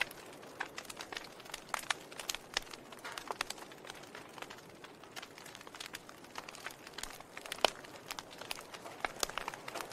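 Wood fire burning in a fireplace: the logs crackle with irregular sharp pops over a soft hiss, one pop louder than the rest about three-quarters of the way through.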